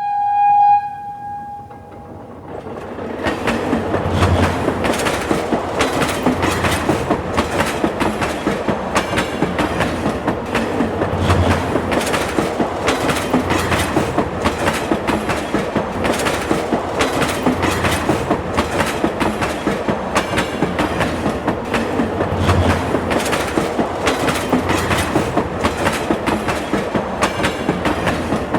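Subway train: a short horn note sounds at the start, then the train runs along the track with a steady rhythmic clickety-clack of wheels over the rail joints.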